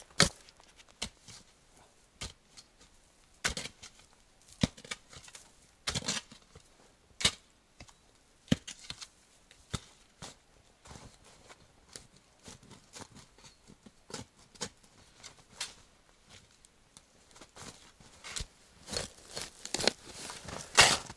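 Spade digging into snow-covered, frozen soil: irregular sharp chops and scrapes, coming faster and louder near the end.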